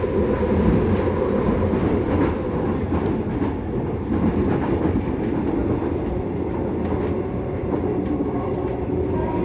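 Seoul Subway Line 2 electric train (4th-batch car 2380) running between stations, heard from inside the car. Steady rumble of wheels on track with a faint steady hum.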